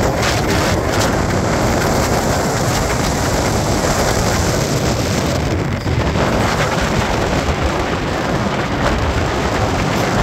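Steady rush of wind over the microphone with the road noise of a Ford pickup driving on a dirt road.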